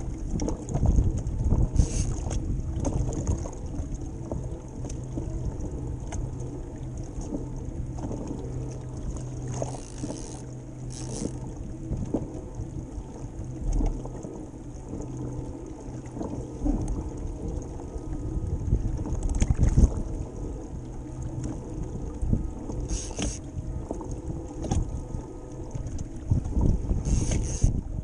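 Wind buffeting the microphone and choppy seawater slapping against a kayak's hull in rough, windy conditions, with short hissing splashes every few seconds.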